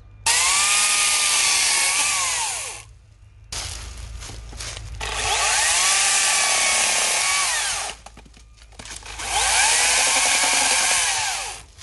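Makita XCU06Z 18V brushless cordless top-handle chainsaw running in three bursts of two to three seconds each, cutting into branches. The electric motor's whine sags in pitch under load and winds down at the end of each burst.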